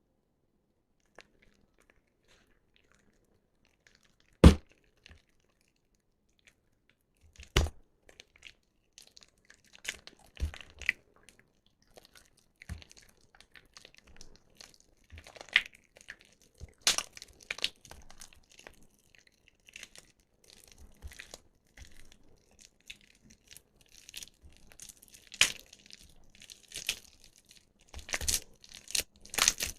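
Soaked soap being squeezed and broken up by hand: irregular wet crackles and crunches that come thicker toward the end. A single sharp knock about four seconds in is the loudest sound.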